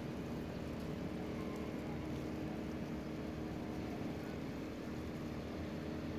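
A steady low mechanical hum holding several constant tones over a noise bed.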